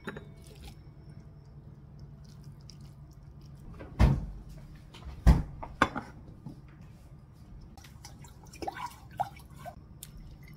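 Kitchenware being handled: three sharp knocks as a stainless steel pot and its lid are moved on the counter, then chilled broth splashing and dripping as it is poured from a bowl into a ceramic noodle bowl near the end.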